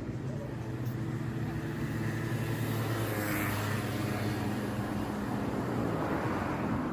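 A motor engine running with a steady low hum, with a wide swell of noise that rises and fades about halfway through.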